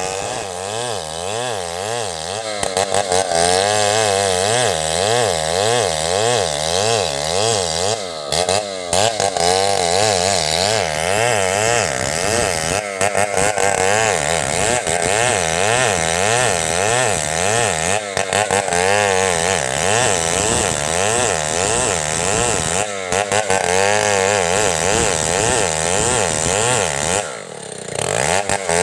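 Two-stroke chainsaw ripping a log lengthwise into planks, running at high revs with its pitch wavering as the chain loads and clears in the cut. The throttle eases off briefly a few times, more deeply once near the end.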